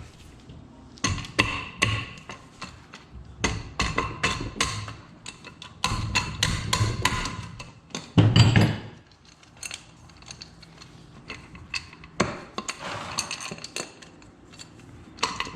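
Irregular sharp knocks and taps on a Yamaha YZ85 engine's clutch case cover as it is worked free of the crankcase. The knocks come thick and fast for several seconds, then only now and then.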